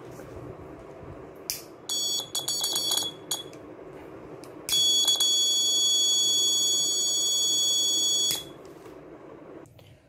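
Piezo buzzer of an Arduino flame-sensor fire alarm sounding a single high tone: a run of short stuttering beeps about two seconds in, then one steady tone lasting nearly four seconds. It is set off by a lighter flame held to the flame sensor, signalling fire detected.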